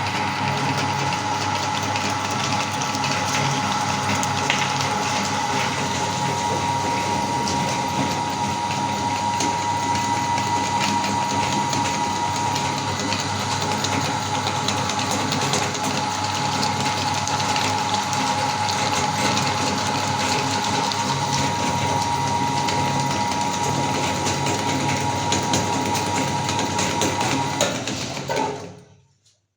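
Electric meat grinder running under load with a steady whine and many small crackling clicks as it grinds hard sweets and cookies. Near the end it is switched off and winds down within about a second.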